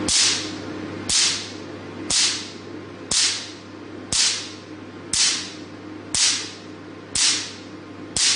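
Picosecond Q-switched Nd:YAG laser firing single pulses into dark test paper at about one shot a second, nine times. Each pulse gives a crisp snap with a short hiss as it burns a spot into the paper. A steady hum from the machine runs underneath.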